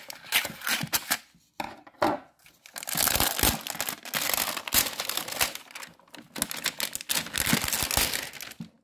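Crinkly plastic toy-packaging wrapper being crumpled and torn open by hand, in irregular bursts of rustling with short pauses.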